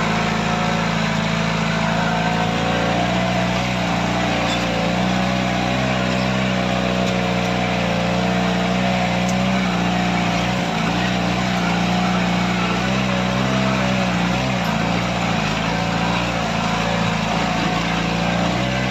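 Off-road Jeep's engine running at steady, slightly wavering revs as it drives over a dirt track, heard from inside the cabin.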